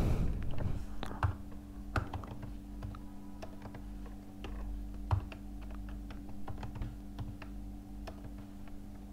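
Typing on a laptop keyboard: irregular, light key clicks, over a steady low hum.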